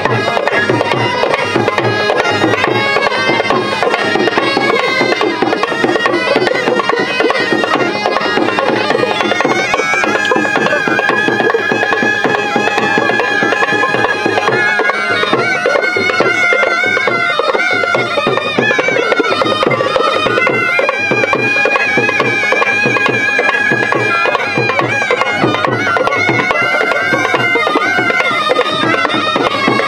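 Haryanvi folk band of been gourd pipes playing a wavering folk melody over a steady drone, with a drum keeping the beat.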